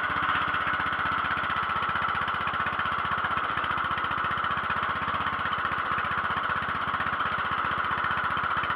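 Small single- or twin-cylinder garden tractor engine idling steadily, an even run of firing pulses with no change in speed.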